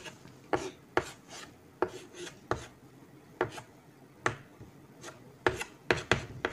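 Chalk tapping and scraping on a chalkboard as it is drawn across the board in a string of short, irregular strokes.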